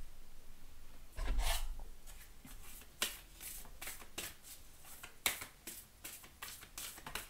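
A deck of oracle cards being shuffled by hand: a soft rustle and bump about a second in, then a run of sharp, irregular card snaps.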